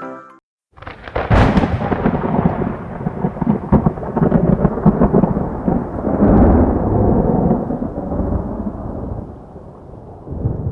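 Thunderclap: a sharp crack of lightning about a second in, then long rolling thunder with crackles that slowly dies away near the end.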